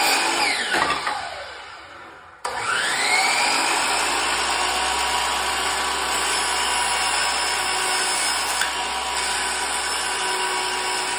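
Sliding compound miter saw spinning up with a rising whine and cutting through wood base molding, then winding down. After a break the saw starts up again and runs steadily while it trims away the square-cut waste at the top and side of a molding piece being prepared for a cope.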